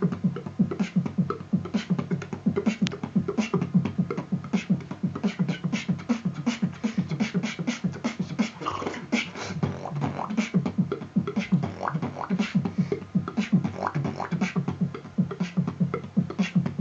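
Freestyle beatbox: a rapid, steady rhythm of vocal kick drums, snare and hi-hat clicks over a low, buzzing bass hum.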